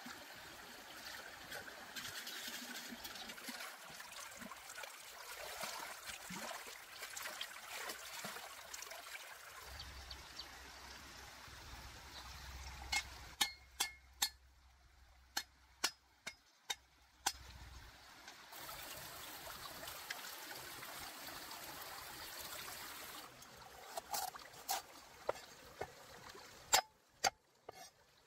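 Shallow stream water trickling and splashing over rocks. Partway through and again near the end comes a run of sharp knocks; the last run is a knife chopping a root on a board.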